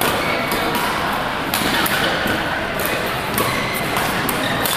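Badminton rackets striking shuttlecocks in rallies on several courts: a string of sharp hits, one every half-second to second, with short squeaks of shoes on the court floor, in a large sports hall.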